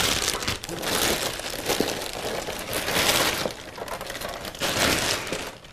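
Clear plastic bag crinkling and rustling loudly as a light panel is pulled out of it, in surges that ease off past the middle.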